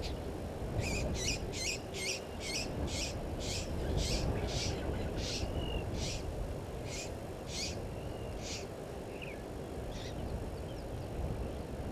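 Blacksmith lapwing calling: a series of sharp, metallic 'tink' notes, quick at first, then slowing and stopping about two-thirds through, over a steady low rumble.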